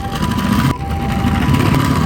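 A toy ambulance minicar rolling along, a loud, noisy rolling sound. Over it a Japanese two-tone ambulance siren sounds 'pee-po', swapping between a higher and a lower tone about every half second.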